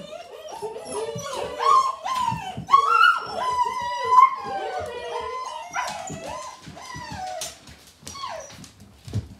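Several eight-week-old Gerberian Shepsky (German shepherd–husky mix) puppies whining and yipping, many overlapping rising and falling cries that thin out near the end.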